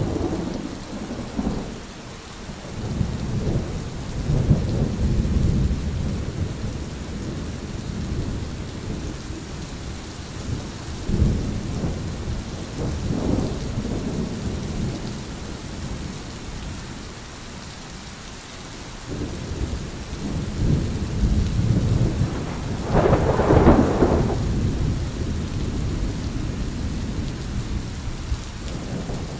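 Thunderstorm: several long rolls of thunder rumbling low, one after another, over a steady hiss of rain. The loudest and sharpest roll comes about three-quarters of the way through.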